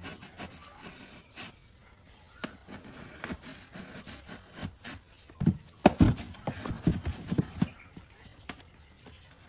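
Utility knife blade cutting through an EPS foam box lid: an irregular run of short, squeaky, scratchy cutting strokes and clicks, louder about halfway through.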